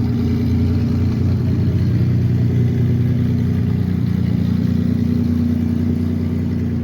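1964 Corvair Spyder's turbocharged air-cooled flat-six engine running steadily at an even speed.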